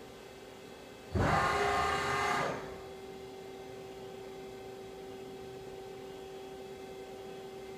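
CNC lathe turret slide moving at rapid traverse: a loud servo whine and mechanical rush starting about a second in and lasting about a second and a half. A steady machine hum with a clear tone carries on after it.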